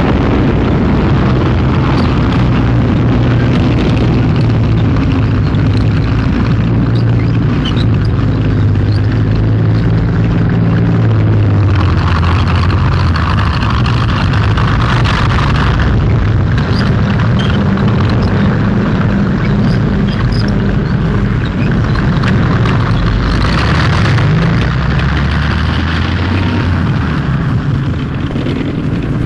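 Battle sound track on an old film print: a continuous heavy rumble of tank engines, with explosions and shellfire breaking through, loudest about twelve to sixteen seconds in and again around twenty-four seconds in.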